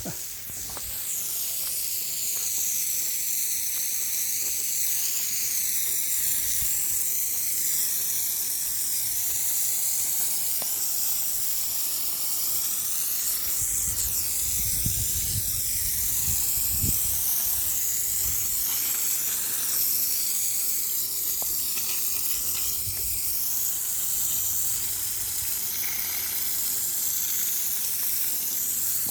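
Steady, shrill high-pitched chorus of countryside wildlife filling the air, with a few low rumbles around the middle.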